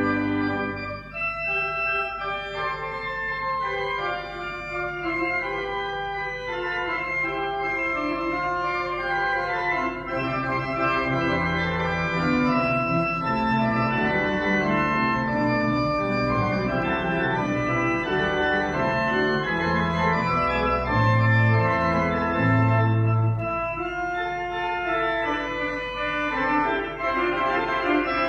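Willis pipe organ playing held chords. The sound is lighter at first, then fills out from about ten seconds in with deep pedal notes in the bass.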